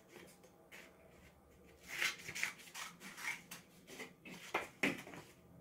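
Scissors snipping through construction paper: a series of short, faint cuts, with the paper rustling as it is handled.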